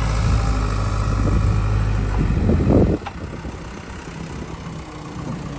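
A motor vehicle's engine idling with a steady low hum, a little louder for a moment just before it stops abruptly about three seconds in.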